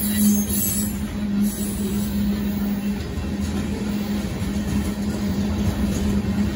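Freight train of covered hopper cars rolling steadily past over a grade crossing, a continuous rumble of wheels on the rails.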